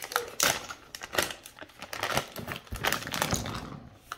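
Clear plastic bag crinkling and rustling in irregular crackles as it is opened and shaken, with the plastic miniature pieces tipped out of it onto a cutting mat.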